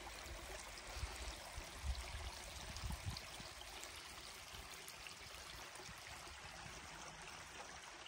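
Faint, steady rush of a shallow spring-fed stream flowing over gravel, with a few soft low thumps in the first three seconds.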